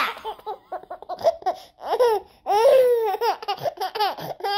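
Baby laughing in quick short bursts, with a couple of longer, drawn-out high-pitched laughs about two to three seconds in.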